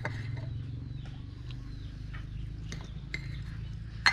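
Light clicks and taps of camping cookware and utensils, with a sharp double clink near the end, over a steady low hum.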